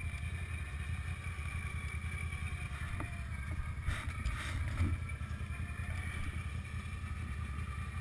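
ATV (quad bike) engine running steadily under load as the quad is winched up a steep dirt slope, a low drone with a faint steady high whine over it.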